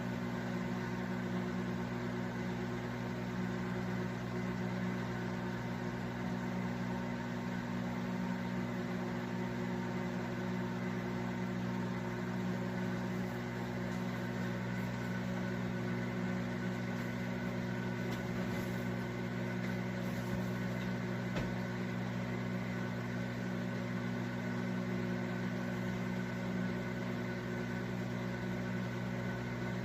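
Countertop microwave oven running with a steady low hum, which the owners suspect comes from a turntable that turns too slowly.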